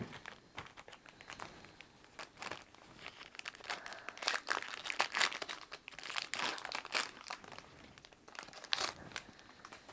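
Yu-Gi-Oh Retro Pack booster wrappers crinkling and crackling as they are handled and torn open. The sound comes in irregular bursts and is busiest in the middle.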